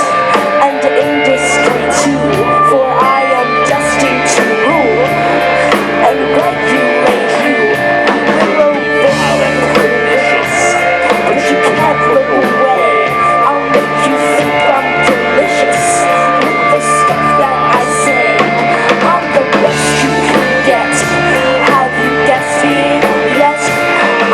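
A rock band playing a funk-rock song, with electric guitar, bass and a drum kit.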